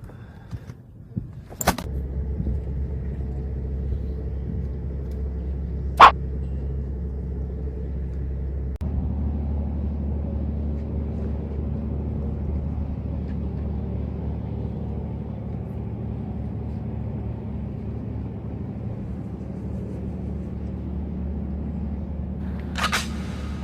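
An engine starts about two seconds in and runs steadily with a low hum, with one loud sharp knock a few seconds later and a short rattle near the end.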